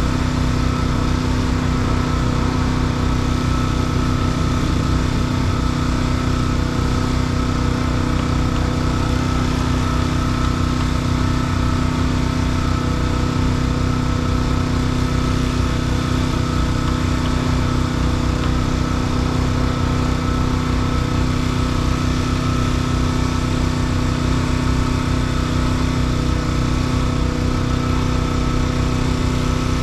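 An engine running steadily at constant speed, with a fast, even pulsing low hum that does not change throughout.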